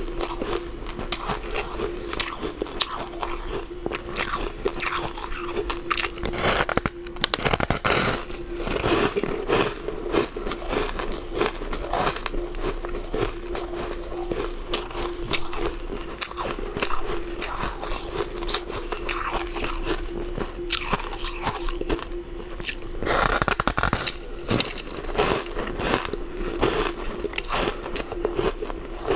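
Biting into and chewing a slab of fluffy, snow-like frozen ice: dense close-up crunching and crackling, with louder bites about seven seconds in and again near the twenty-three-second mark, over a faint steady hum.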